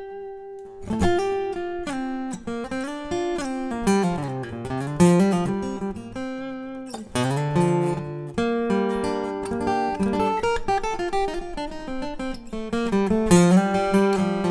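Takamine PTU200 SP-K dreadnought acoustic guitar played solo: single-note melody lines and chords, with a falling bass run in the middle and sharp strummed chords about a second in and again about seven seconds in.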